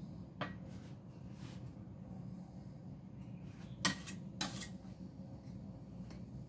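Metal icing spatula clinking against a stainless steel mixing bowl while loading frosting: a light click early on, then two sharp clinks about half a second apart around four seconds in.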